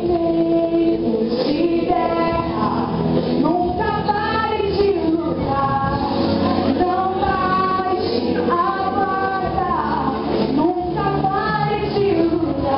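A young woman singing a song in Portuguese into a handheld microphone, over instrumental accompaniment, holding long notes with vibrato.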